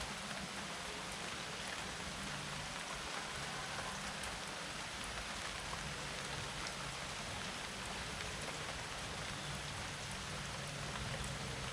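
Steady rain falling and pattering on a surface, an even hiss with scattered drops and a low background rumble.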